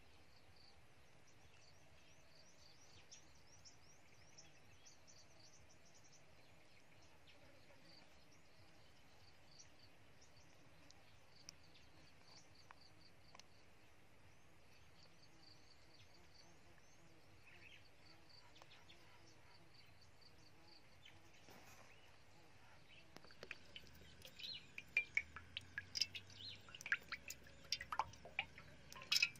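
Faint birdsong, small birds chirping over a quiet background. In the last few seconds, irregular sharp crackles and pops from hot oil in a wok.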